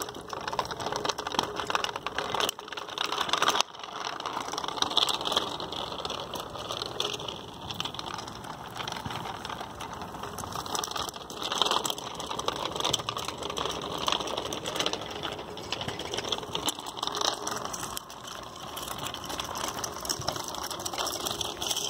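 Bicycle rolling along a rough, cracked path and gravel, a busy rattling noise full of fine ticks, louder at moments.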